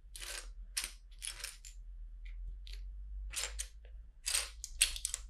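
Plastic LEGO bricks clicking and rattling in a string of short, irregular bursts as hands sort through a loose pile and press pieces onto the build, the loudest clicks near the end.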